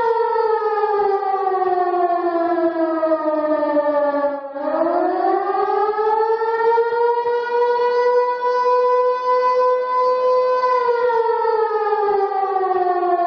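Civil defense siren wailing. Its pitch falls over about four seconds, sweeps back up and holds steady for a few seconds, then starts falling again near the end.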